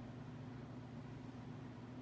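Steady low hum over a faint hiss: room tone, with no distinct event.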